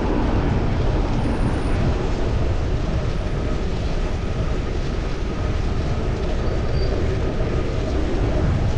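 Steady wind rush on a chest-mounted action camera's microphone while cycling, with road and traffic noise underneath.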